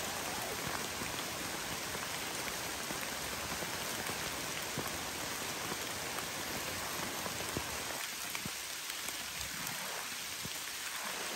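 Steady rain falling, with scattered single drops ticking out of the hiss.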